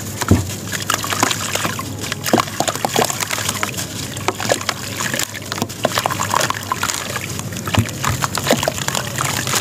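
Dusty sand-and-cement lump crumbling between bare hands, grit and chunks falling and splashing into a basin of water, with many small irregular crackles.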